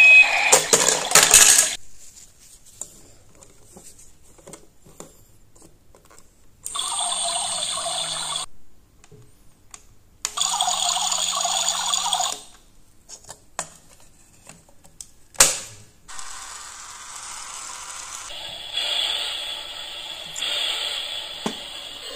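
Battery-powered toy kitchen appliances run one after another. A toy blender and a toy coffee maker buzz in steady bursts of about two seconds each, with a sharp button click. A fainter steady hiss from a toy oven and hob fills the last few seconds.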